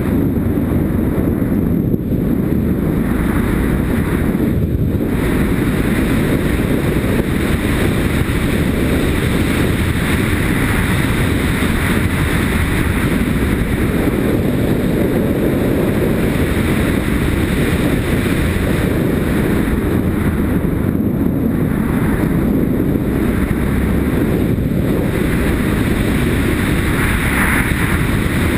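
Yamaha Ténéré motorcycle riding at steady speed on a gravel track: engine running under heavy wind rush on the helmet-mounted microphone.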